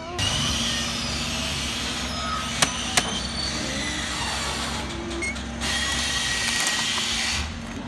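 Plastic compactor mechanism of a Bruder toy rear-loader garbage truck being cranked by its side knob: a steady rough grinding noise with two sharp clicks about two and a half and three seconds in, and a brief lull about five seconds in.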